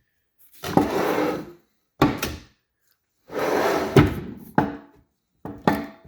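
Metal transmission parts and hand tools being handled on a workbench: four bouts of clunking and scraping, some with a short metallic ring.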